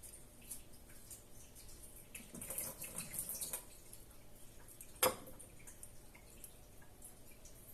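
Quiet kitchen food-preparation sounds: scattered soft clicks, a brief scraping rustle about two and a half seconds in, then one sharp knock about five seconds in.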